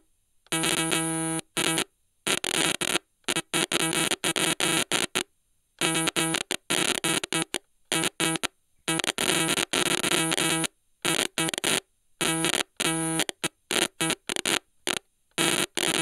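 Stylophone's buzzy, steady-pitched tone chopped into glitchy stuttering fragments, snapping on and off abruptly with short dead gaps between bursts of uneven length.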